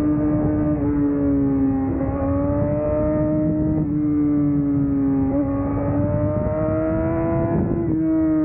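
Yamaha R6's inline-four engine running at high revs as the bike is ridden, a strong steady tone that rises and dips slightly, with small pitch shifts at about two, four and eight seconds, over wind rush.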